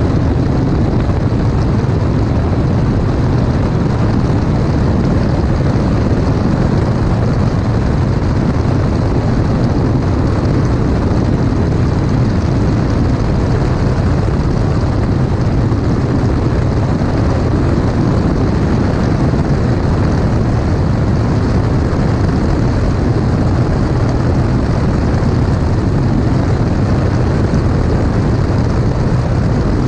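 Light single-engine propeller aircraft in flight: a steady engine and propeller drone mixed with rushing wind, heard from a camera mounted outside under the wing.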